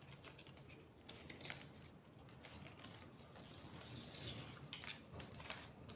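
Dry banana-leaf fibre strips rustling and clicking faintly and irregularly as hands lift them and thread another strip through in an over-under weave.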